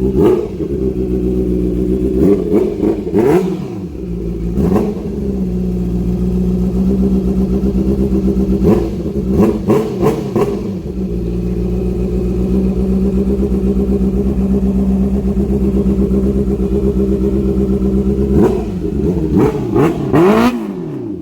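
Honda CBR650R inline-four motorcycle engine with an aftermarket exhaust, idling steadily and blipped in short, sharp revs several times, in bursts near the start, in the middle and near the end.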